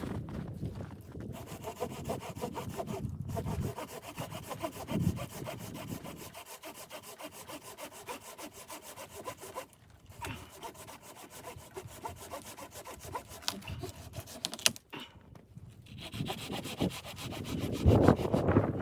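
Hand saw cutting through wood in steady back-and-forth strokes, with brief pauses a few times.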